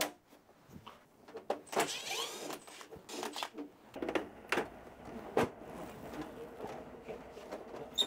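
Plastic clicks, knocks and scraping as the outer casing panel of a Daikin wall-mounted air-conditioner indoor unit is unclipped and pulled off, with a brief squeaking scrape about two seconds in.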